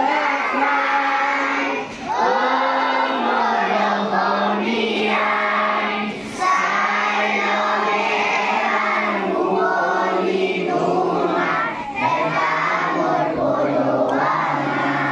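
A group of children, with women among them, singing a song together in unison, in long held phrases with short pauses for breath.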